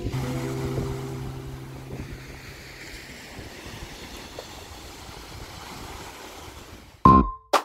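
Waves washing onto a pebble beach with wind on the microphone, a steady hiss, while the last notes of background music die away over the first couple of seconds. About seven seconds in, loud sharp keyboard notes cut in as new music starts.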